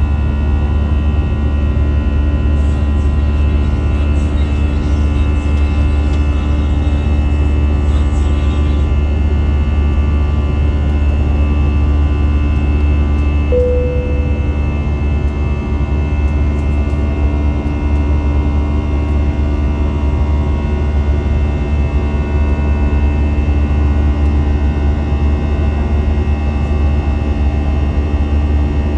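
Steady cabin noise of an Airbus A320 climbing out after takeoff: a strong, even low drone with steady engine tones layered over it, heard from a window seat. A brief single tone sounds about halfway through.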